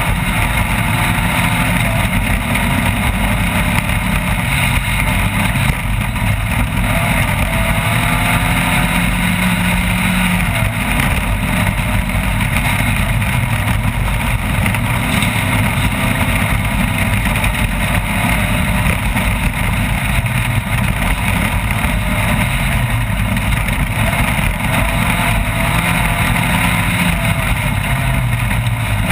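Off-road race vehicle's engine running hard, its pitch rising and falling with the throttle, over a constant loud rushing noise.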